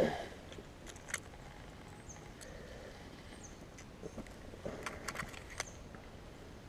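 Quiet handling of a bass and a handheld digital fish scale. There is a knock at the start, a click about a second in, and a quick cluster of small clicks about five seconds in as the scale's lip clip is fastened and the fish is hung from it.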